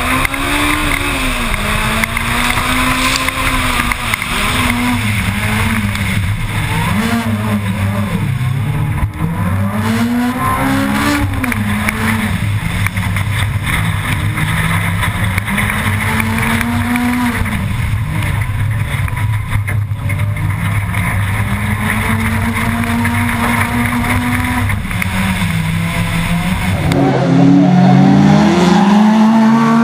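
Honda Civic rally car's engine driven hard from on board, revving up and dropping back again and again through gear changes over tyre and gravel noise. Near the end the sound switches to the car heard from trackside, its engine holding a steady high note.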